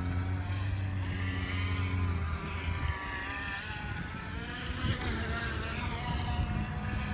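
Radio-controlled surfer toy's small motor and propeller whining as it runs across the water, its pitch rising and falling with the throttle through the turns. A steady low hum sits under it for the first couple of seconds.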